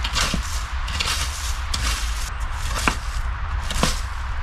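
Dry sticks snapping while firewood is gathered: four sharp cracks about a second apart, over a steady low rumble.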